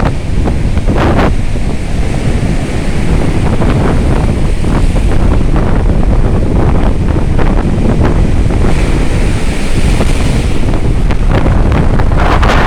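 Stormy sea surf breaking and washing on the shore, heard under strong wind buffeting the microphone with a heavy low rumble.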